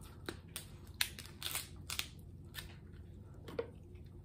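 Cooked king crab leg shell being cracked and snapped apart by hand: a string of sharp cracks and crackles, about one every half second, thinning out near the end.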